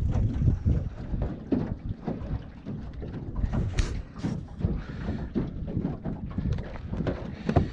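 Wind buffeting the microphone in a low, uneven rumble on an open boat, with a few sharp knocks about halfway through and near the end.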